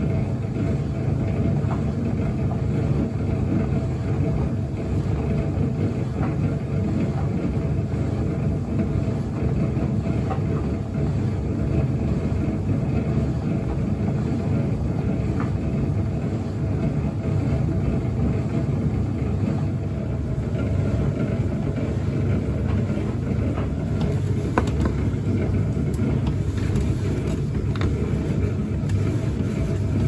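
White Knight C45CW vented tumble dryer running, its drum turning with clothes tumbling inside, a steady low rumble. The drum bearing has gone, which makes the machine noisy.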